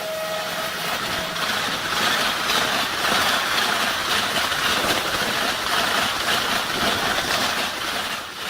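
Indian Railways train hauled by a WAG7 electric locomotive running past at speed: steady rolling noise of wheels on rail, with a faint regular clatter. A horn note that has just fallen in pitch dies away within the first second.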